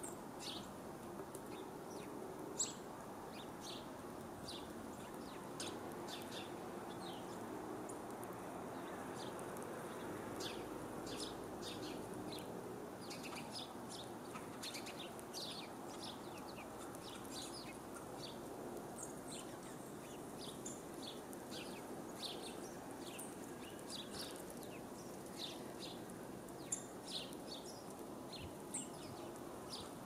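Small songbirds chirping and tweeting in short, scattered calls, many overlapping throughout, over a steady low rush of background noise. Two sharp taps stand out, one near the start and one near the end.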